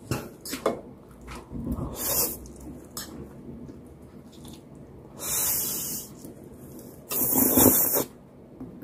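Pancit canton noodles slurped off a fork in several hissy slurps, two of them about a second long in the second half, after a couple of clicks of the fork against the bowl near the start.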